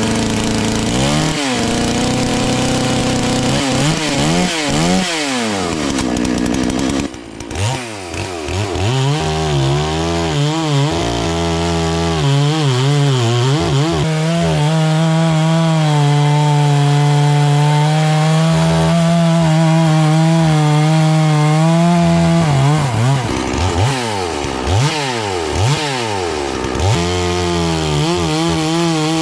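Farmmac F380W two-stroke chainsaw, an MS 380 clone, revving and cutting poplar. The engine pitch rises and falls repeatedly, drops briefly about seven seconds in, then holds steady under load through a long cut in the middle before revving up and down again.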